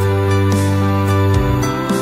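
Background music: held notes over a bass line, with the bass note changing about two-thirds of the way through.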